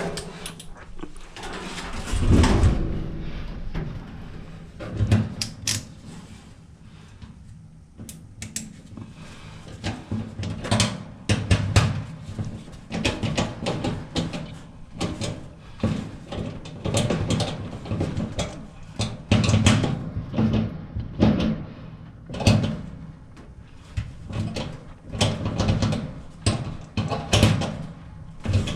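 Irregular clunks, knocks and rattles of metal dryer parts and panels being handled.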